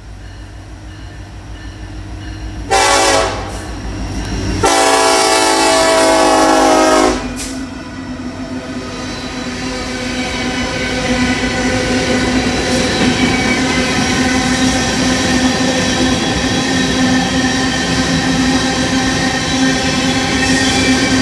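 Norfolk Southern EMD SD70ACe diesel locomotive rumbling in and sounding its horn for the grade crossing: a short blast about three seconds in, then a long blast of about two and a half seconds and a brief toot. Afterwards the steady rumble and wheel clatter of covered grain hopper cars rolling past, growing louder.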